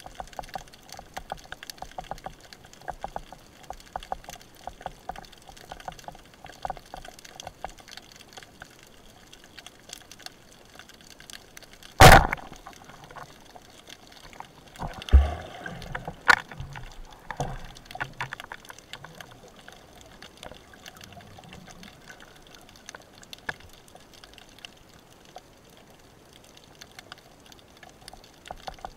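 Underwater crackling of many small ticks, broken about twelve seconds in by a single loud sharp crack as a rubber-band speargun fires. About three seconds later comes a second loud noisy burst with a low thump.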